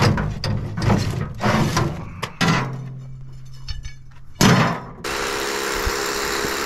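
Steel rebar clanking and scraping as lengths are pulled from a metal trailer toolbox and laid into a metal wheelbarrow, with one loud clank about four and a half seconds in. About five seconds in, a power drill starts and runs steadily, drilling in the rebar.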